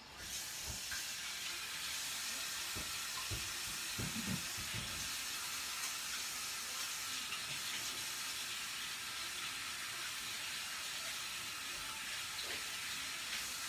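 Kitchen faucet running steadily while hands are washed under it, with a few soft knocks a few seconds in; the water cuts off near the end.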